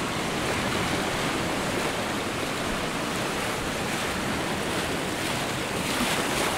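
Sea surf washing in steadily, with a rush of wind, swelling a little near the end.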